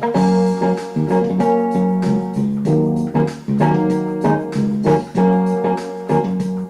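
Background music played on a keyboard: sustained piano- or organ-like chords changing every half second or so.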